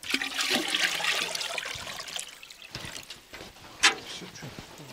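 Water pouring from a galvanised bucket into an aluminium milk churn, a loud rush for about two and a half seconds that then tails off. A single sharp knock follows near the end.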